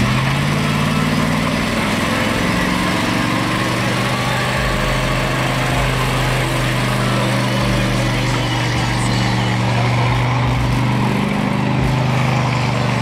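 A 1980s Buick Regal's engine held at high revs in a steady drone during a burnout, with a rush of noise from the spinning, smoking rear tyres. The pitch climbs during the first second, then holds.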